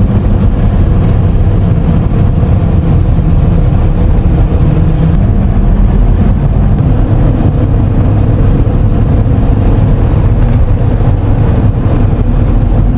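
Steady low rumble of a vehicle on the move, heard from inside the cabin: engine and road noise while driving.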